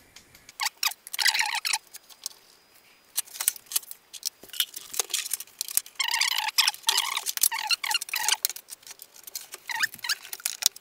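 Irregular clicks and knocks, with short squeaky scrapes a second in and again about six seconds in: hardware inside an open Commodore PC 20 III being handled while an 8-bit ISA expansion card is connected.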